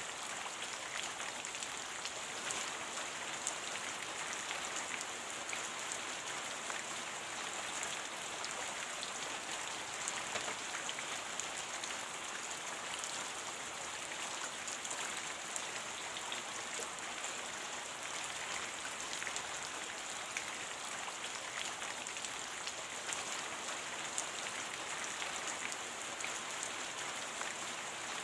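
Steady rain, many small drop ticks over an even hiss that stays unchanged throughout.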